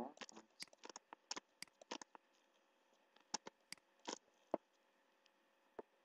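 Computer mouse clicking: a quick, irregular run of about a dozen sharp clicks in the first two seconds, then a few scattered clicks.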